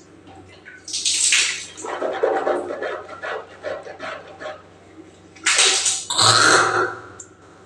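A woman hawking and clearing her throat while brushing her teeth, gurgling through a mouthful of toothpaste foam: a series of harsh, rough bursts, the loudest about five and a half to seven seconds in.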